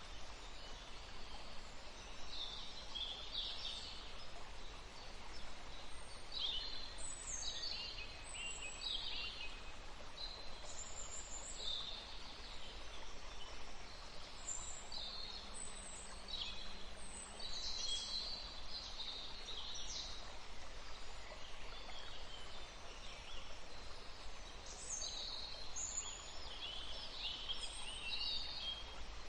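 Forest ambience: small songbirds chirping and trilling in many short phrases over the steady rush of a small stream.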